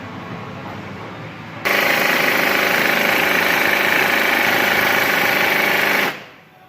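Impact wrench hammering on a rust-seized wheel hub bolt. It starts suddenly about two seconds in, runs steadily for about four seconds and cuts off near the end, without freeing the bolt.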